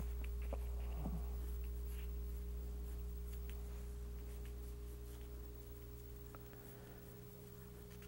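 Pencil sketching on drawing paper: faint, scattered scratching strokes over a steady low electrical hum that slowly fades.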